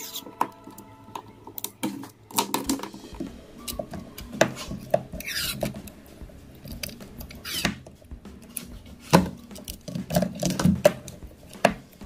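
Plastic tape being wrapped around a pair of cylindrical lithium-ion cells: irregular crinkling, rubbing and squeaking of the tape, with small clicks and taps as the cells are handled.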